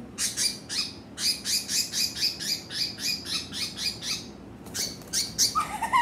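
Small pet bird calling in a fast run of short, high chirps, about five a second, while being held in a gloved hand; after a short break a few more chirps follow.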